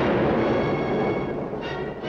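Orchestral main-title music of a 1940 film serial: a loud, dense full-orchestra passage that thins out near the end.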